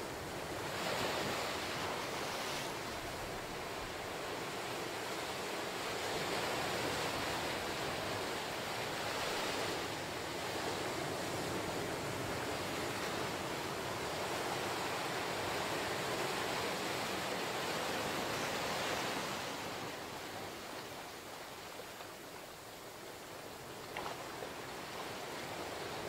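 Ocean surf breaking and washing up a sandy beach between lava rocks: a steady rushing wash that swells about a second in and eases off about three quarters of the way through.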